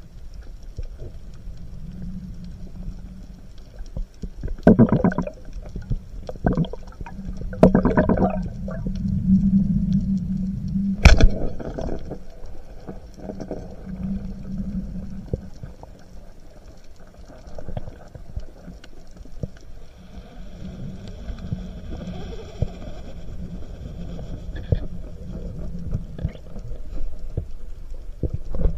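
Muffled underwater sound through a camera housing: low steady rumble and water movement, with a sharp crack about eleven seconds in from a speargun being fired.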